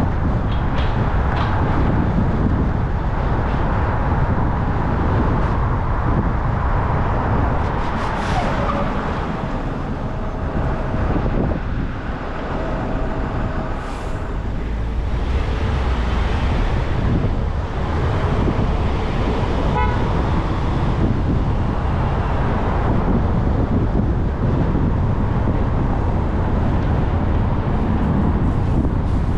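Car driving in city traffic: steady road and engine noise, with a car horn held in one long toot for about four seconds around the middle.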